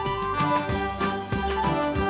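Background music: a bright, plucked-string tune over a steady bass beat.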